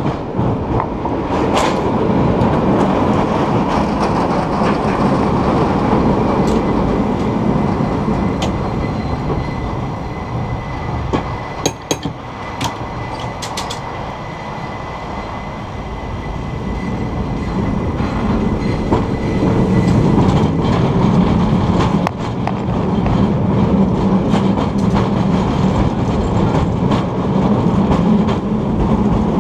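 A San Francisco cable car running along its track, a steady rumble and clatter of the car on the rails that grows louder in the second half. A faint high whine runs through the middle, and a few sharp clacks come a little before halfway.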